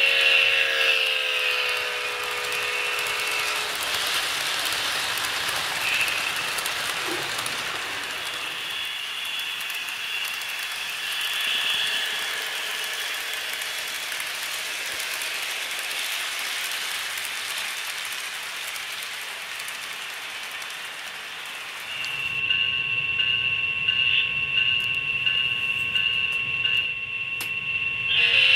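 An HO scale model diesel's sound-decoder horn blows for about three seconds at the start. A long model freight train then clatters along the track, its cars rattling over the rails. About 22 s in, a steady hum with high tones from the locomotive's sound speaker takes over, and the horn starts again at the very end.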